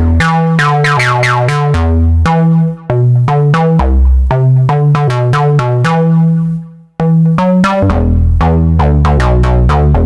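Studio Electronics Midimini V30 analog monosynth playing a fast, repeating bass line, about four or five notes a second. Each note starts bright and closes down quickly through the filter, while the filter settings are changed as it plays. The notes fade out and stop briefly just before the seven-second mark, then start again.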